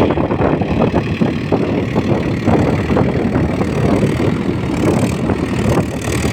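Diesel engine of a Mahindra Yuvo 475 tractor running, with wind buffeting the microphone.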